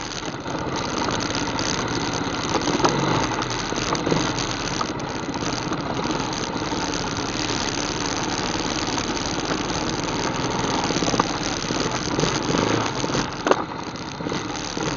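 ATV engine running steadily while riding a trail, with a few sharp knocks and rattles from the machine.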